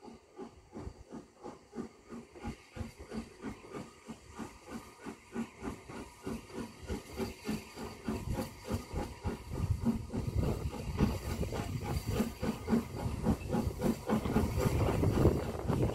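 Steam locomotive hauling a train toward the listener, its exhaust beating in an even rhythm and growing louder as it comes nearer.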